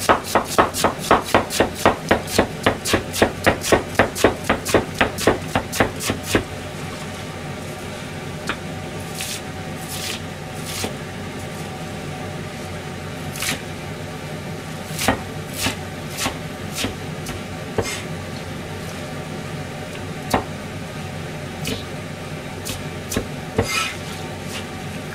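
Kitchen knife chopping vegetables on a plastic cutting board: a fast, even run of strokes at about three a second that stops about six seconds in, followed by occasional single knocks of the blade on the board.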